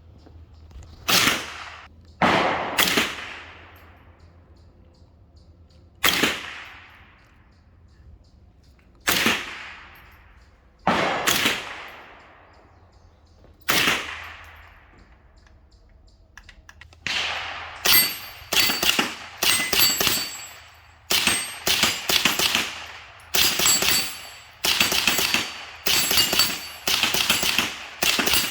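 Suppressed .22 LR rifle shots, likely from a Smith & Wesson M&P 15-22. A few single shots come several seconds apart, then a quicker string of about two shots a second through the second half. Many of the later shots carry a thin metallic ring, the sound of the bullets striking a steel plate target.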